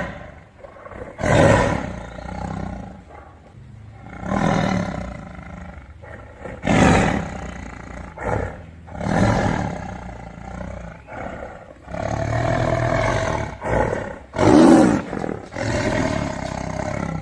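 Tiger roaring again and again, a loud roar every two to three seconds, with one longer, drawn-out roar past the middle.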